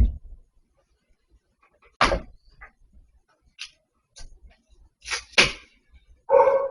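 A few separate knocks and bangs: one at the start, one about two seconds in, and two close together a little after five seconds, with faint clicks between them.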